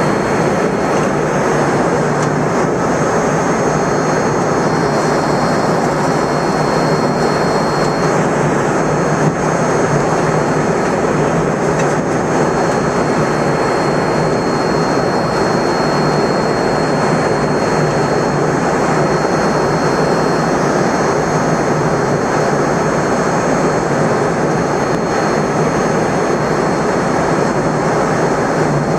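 Steady roar inside a jet airliner's cabin at cruise altitude: engine and rushing-air noise, with a thin, high, steady whine over it.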